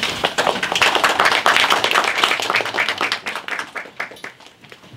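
Audience applauding: many hands clapping together, thinning out and dying away about four seconds in.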